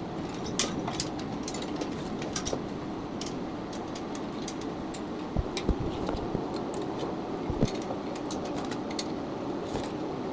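Steel cable and metal rack parts being handled while the cable is fed through the pulleys and holes: scattered light metallic clicks and ticks, with a few dull knocks about halfway through, over a steady background hum.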